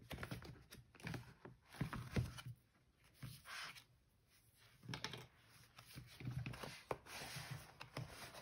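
Faint handling of a leather notebook cover and a thick paper notebook on a tabletop. There are soft knocks and thumps, and stretches of rubbing and sliding as the book is worked into the stiff leather cover.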